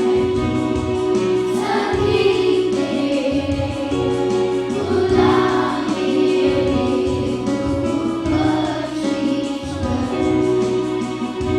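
A group of children singing a Hindi prayer together in chorus, with musical accompaniment.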